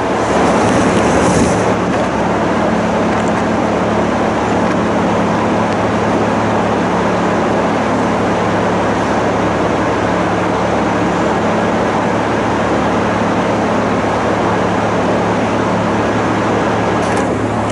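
An engine running steadily, a constant low hum under a dense even rumble.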